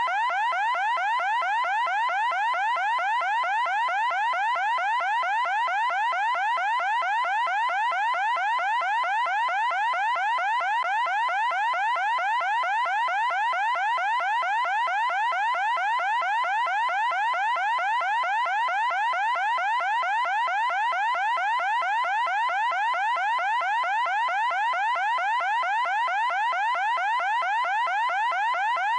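Loud electronic alarm: one pitched tone sweeping quickly upward over and over, several times a second, at an unchanging level.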